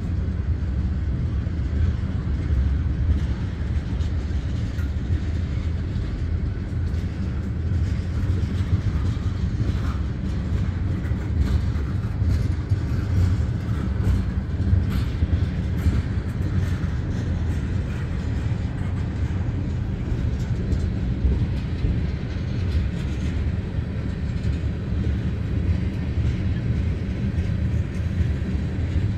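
Freight train of tank cars rolling past: a steady rumble of steel wheels on rail, with scattered light clicks.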